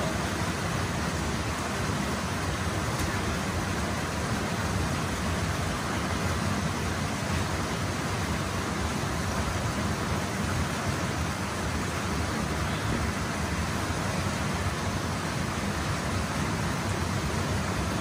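Small waterfall pouring steadily into a pool: an even, unbroken rush of water.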